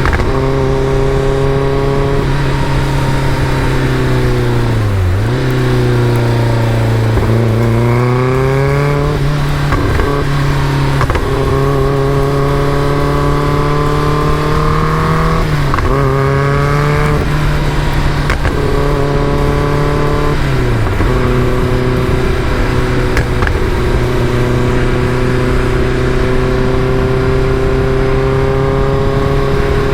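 Caterham Super Seven's engine pulling under load while driven, the engine note held mostly steady, dropping briefly and then climbing with each gear change, about four times.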